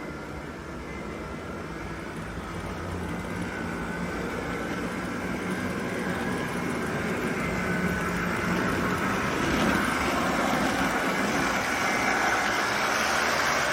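Athearn HO-scale DD40 model locomotive's two motors humming and its wheels rumbling on the track, getting steadily louder as it comes closer. The motors are straining and drawing a lot of current, since the locomotive has not been cleaned or lubricated in years.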